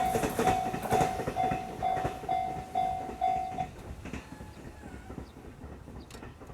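Level-crossing alarm bell ringing about twice a second over the fading rumble and wheel clicks of a passing JR Mito Line train. The bell stops about three and a half seconds in, as the train clears the crossing.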